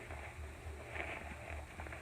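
Faint rustling of a fabric wet bag being turned inside out by hand, over a low, pulsing background hum.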